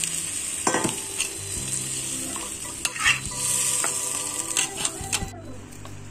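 Metal spatula scraping and knocking against a wok as chicken and tofu pieces in a thin sauce are stirred, over a steady sizzle from the hot wok with water just added. The sizzle cuts off suddenly about five seconds in.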